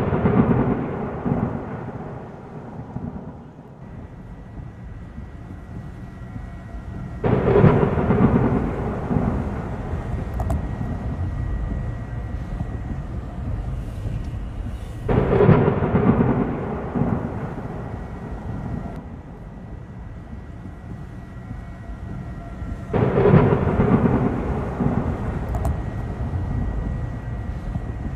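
Thunder in a thunderstorm. Rumbling peals start suddenly, one just before the start and three more about eight seconds apart, each fading slowly into a steady storm noise between them.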